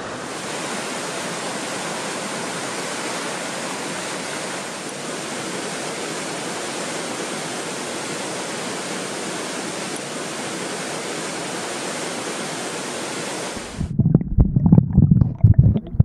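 Mountain stream rushing steadily over rocks. Near the end it cuts suddenly to loud, irregular low gurgling and knocking of water heard from a camera held underwater.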